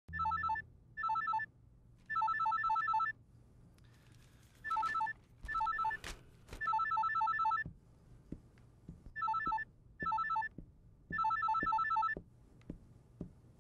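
Mobile phone ringing unanswered: an electronic trilling ringtone in repeating phrases of two short bursts and one longer burst, three rounds with short pauses between.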